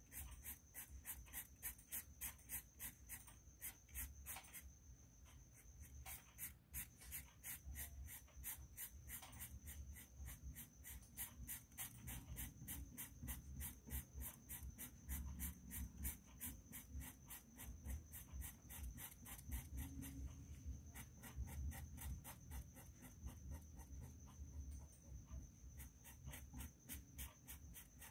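Felt-tip marker scratching back and forth on paper in quick, even strokes, about four a second, as a picture is coloured in. Faint, over a low steady hum and a thin high whine.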